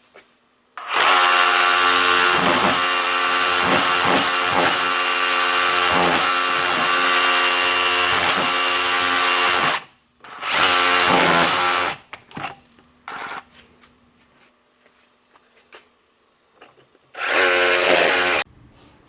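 Ridgid R86712 brushless SDS rotary hammer running in chisel mode, chipping mortar out of a crack in a stone wall. One long run of about nine seconds, then two short bursts.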